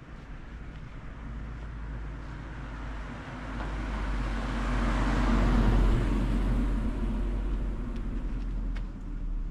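A car drives past on a rain-wet street: tyre hiss and engine rumble swell to a peak about halfway through, then fade away.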